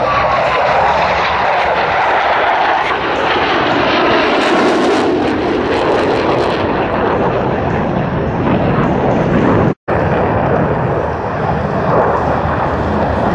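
Boeing F/A-18 Hornet jets passing overhead with loud, steady jet-engine noise. The pitch falls just at the start as a jet goes by, and the sound drops out briefly about ten seconds in.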